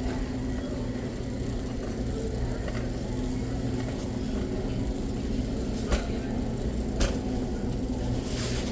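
Steady low rumble of indoor retail ambience, with two short sharp clicks about six and seven seconds in and a brief hiss near the end.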